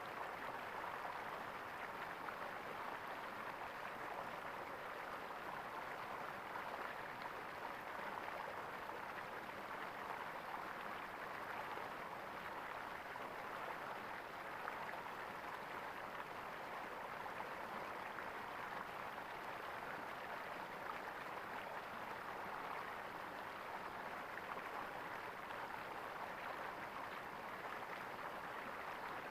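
Stream water gurgling steadily.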